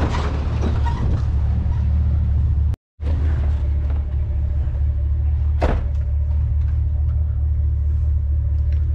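Steady low rumble of a vehicle driving. The sound cuts out completely for a moment about three seconds in, and there is one brief sharp sound a little past halfway.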